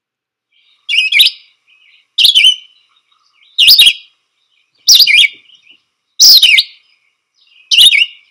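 Red-eyed vireo singing, played from a field-guide recording: six short, high, sweeping phrases with brief pauses about a second and a half apart. This is the endlessly repeated question-and-answer pattern often rendered 'here I am, where are you?'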